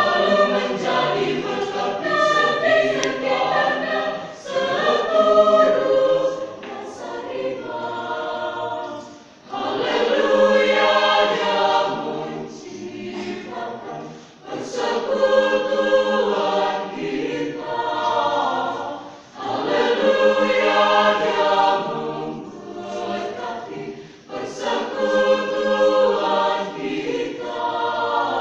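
A mixed choir of women's and men's voices sings together. The phrases swell and fade, with short dips between them about every five seconds.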